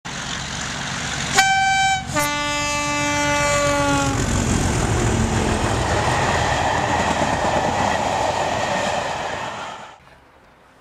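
Train sounding a two-tone horn as it passes: a short high note, then a longer low note that falls slightly in pitch, over the loud rumble of the passing train. The rumble cuts off suddenly near the end.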